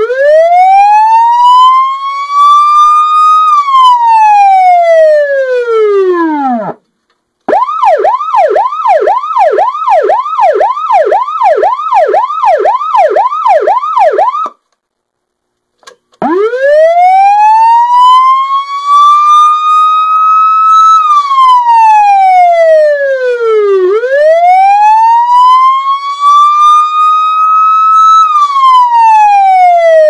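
Dietz Omni-Sound electronic siren running through its tones. It starts with a slow wail that rises and falls over several seconds. It is then cut off and switched to yelp, with rapid sweeps of nearly three a second. After a short silence it goes back to the slow rising and falling wail.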